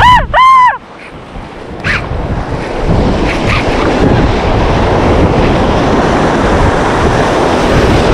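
Wind buffeting the microphone over a steady wash of surf, building over the first few seconds and then holding. It opens with two short pitched tones that rise and fall.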